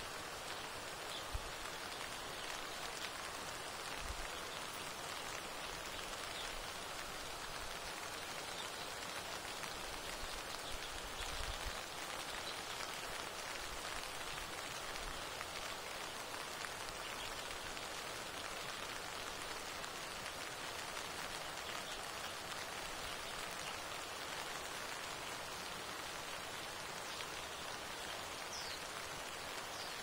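Steady rain falling, an even hiss of drops on surfaces, with a few soft low thumps.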